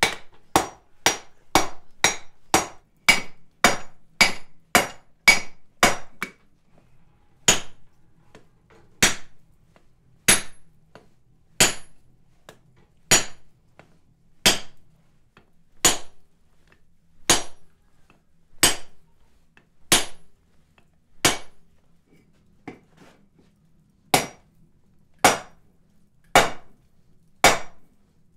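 Hammer blows on a hot steel bar on an anvil, each a sharp ringing strike. A quick run of about three blows a second for the first six seconds gives way to slower, evenly spaced sledgehammer blows about every second and a half, struck by a striker onto a handled top tool held on the bar.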